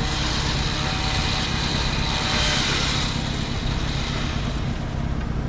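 Off-road 4x4 vehicle engine running steadily under load, with a swell of broader noise about two to three seconds in.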